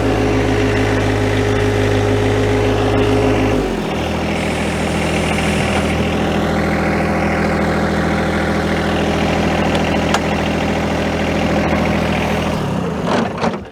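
John Deere 1025R compact tractor's three-cylinder diesel engine running steadily. It drops to a lower speed about four seconds in, then cuts out near the end.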